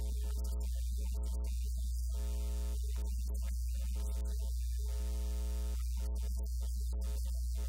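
Steady low electrical mains hum, with fainter higher hum tones fading in and out every second or so.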